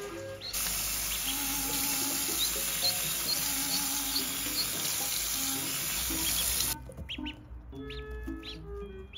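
Water running from a tap that shuts off suddenly about seven seconds in, with a duckling's high peeps over it and more clearly after it stops. Light background music plays throughout.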